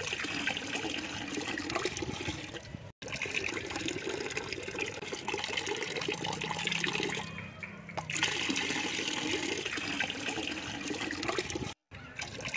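A thin stream of water pouring from a homemade bottle pump's spout into a plastic cap and splashing into a shallow pool, steady, breaking off briefly twice.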